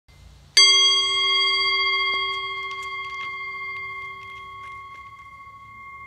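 Metal singing bowl struck once with a wooden striker about half a second in, then ringing with several clear tones at once that slowly fade.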